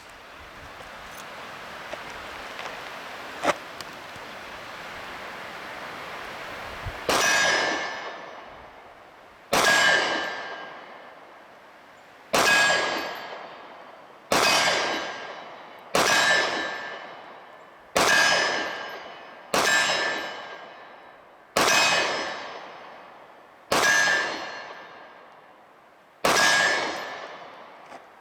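Ten shots from a SIG Sauer P365 9mm pistol fired at a steady pace about two seconds apart, each followed by a steel target ringing loudly and dying away over a second or two. Before the string starts there is a faint hiss with a single sharp click.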